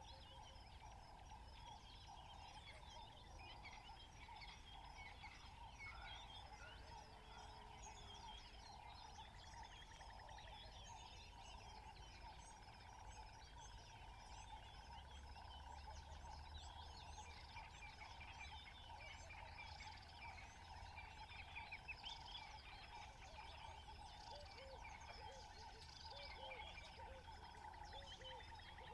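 Faint natural outdoor ambience: many small bird chirps scattered throughout over a steady insect-like drone.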